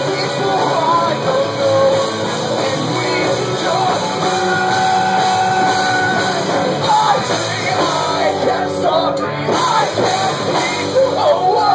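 A rock band playing live, with electric guitar and bass guitar and singing over them. A note is held for about two seconds in the middle.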